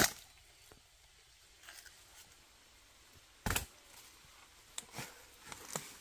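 A sharp knock as a digging tool strikes at a bamboo shoot in the soil, then a duller thud about three and a half seconds in. Near the end, a few light footsteps crunch on dry bamboo leaves.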